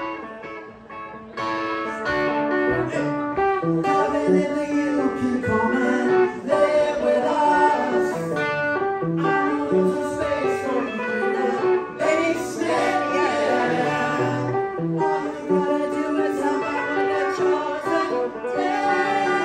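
Live solo electric-acoustic guitar, picked in a busy run of changing notes, with a male voice singing over it. The playing dips briefly about a second in, then carries on.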